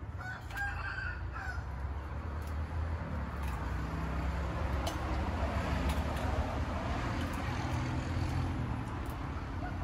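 Outdoor background with a steady low hum. A bird calls briefly near the start, and a few sharp clinks of spoons against bowls are heard while eating.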